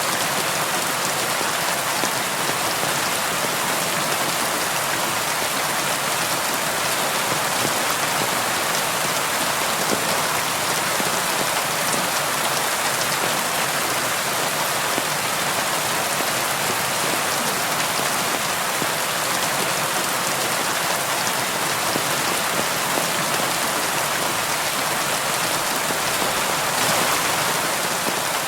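Steady rain falling and pattering on a window, an even hiss of drops with no thunder or other events.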